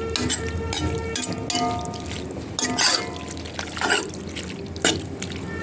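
A utensil stirring wet food in a cooking pot, with irregular clinks and scrapes over a steady faint hum.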